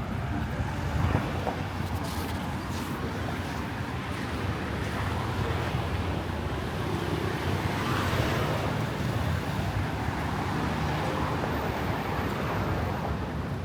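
Steady street traffic: a low rumble of passing vehicles' engines and tyres, with one vehicle swelling louder as it passes about eight seconds in.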